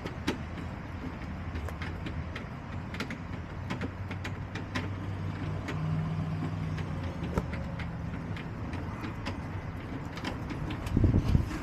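Low, steady hum of a motor vehicle engine, swelling a little around the middle and again near the end, with scattered sharp taps and clicks throughout.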